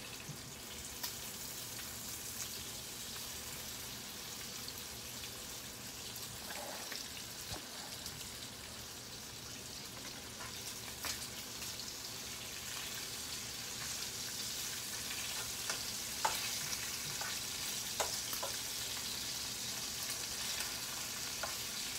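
Bacon frying in a pot: a steady high sizzle that grows a little louder about halfway through, with a few sharp ticks.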